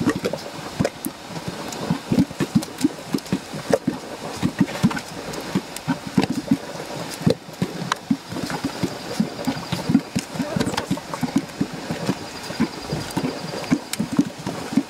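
Mud pot bubbling: thick grey mud bursting in short, irregular low plops, several a second.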